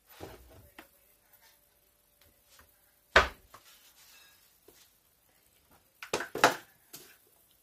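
Handling knocks of a blue plastic salt container being taken down from a kitchen wall cupboard and carried to a bowl: a light knock at the start, one loud knock about three seconds in, and a quick cluster of sharp clicks and knocks near the end.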